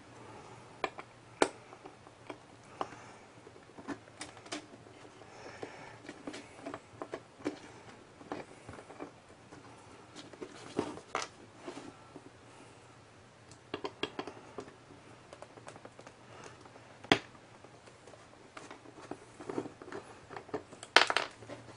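Small scattered clicks and taps of a screwdriver and metal screws being worked out of a 2.5-inch laptop hard drive's caddy, with handling of the drive and its casing. One sharper click comes about two-thirds of the way through and a quick run of taps near the end.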